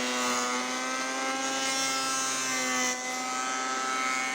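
Woodworking machine running steadily, a humming whine that wavers slightly in pitch, typical of a thickness planer with its dust extraction.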